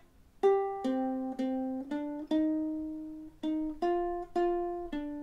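Ukulele played slowly note by note: about nine single plucked notes on the second and third strings, each ringing out and fading before the next.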